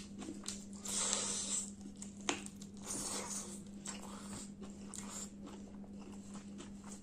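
Close-up mouth sounds of eating chicken curry and rice: irregular chewing, biting and smacking, with the wet squish of fingers mixing curry-soaked rice on the plate. The loudest burst comes about a second in, with a sharp click just after two seconds, over a steady low hum.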